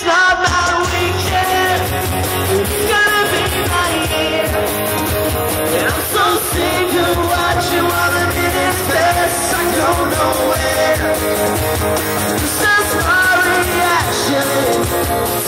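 Live pop-punk band playing loudly, with a man singing into a microphone over guitar.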